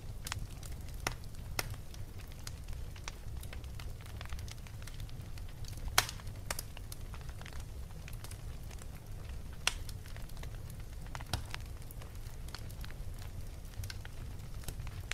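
A wood fire crackling in a fireplace: irregular sharp pops and snaps over a steady low rumble, with the loudest pop about six seconds in.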